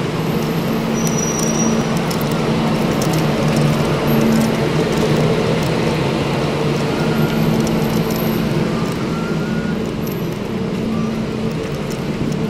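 Road traffic noise: vehicle engines running steadily with a low hum and constant road noise.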